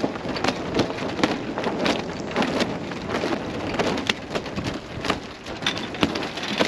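Wind buffeting the microphone, with irregular sharp cracks and clatters, a few a second, from a loose mainsail and its rigging flapping in the breeze.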